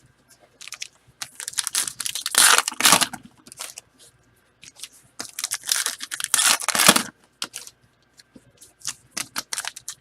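Packaging being torn open and crumpled by hand: two spells of tearing and crinkling, the second about five seconds in, with scattered small clicks between them.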